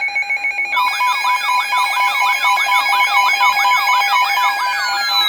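Electronic siren-style alert tones: several layered sweeps rise and fall rapidly, a few times a second, over steady tones, and a long falling glide begins about four seconds in.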